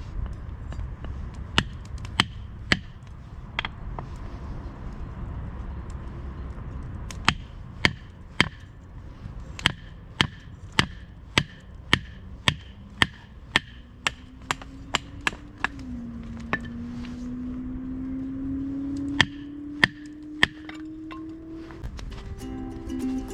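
Repeated sharp strikes, each with a short ring, coming in runs of about two a second with pauses between, as of chopping or hammering. A low tone slowly rises in pitch through the second half, and background music comes in near the end.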